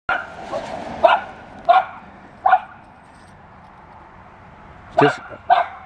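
A dog barking in single short barks, four about a second or less apart, then a pause of about two seconds before two more near the end.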